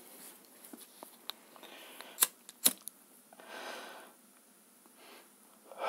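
A disposable lighter struck twice, two sharp clicks about half a second apart, then a short hiss as it burns.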